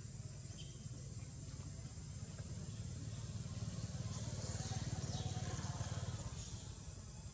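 Low outdoor rumble that swells through the middle and eases off near the end, with a faint high hiss over it at its loudest.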